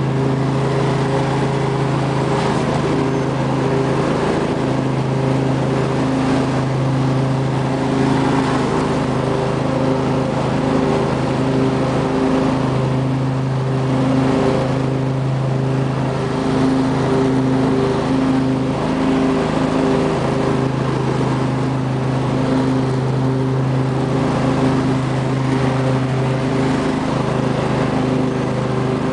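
2005 Husqvarna lawn tractor's 24 hp Briggs & Stratton V-twin engine running steadily under mowing load as the tractor drives across the lawn.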